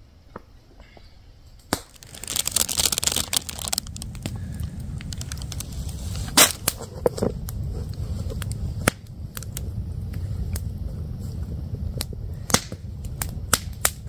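Wood campfire crackling, with sharp irregular pops and snaps. A brief hissing rush comes about two seconds in, followed by a steady low rumble under the pops.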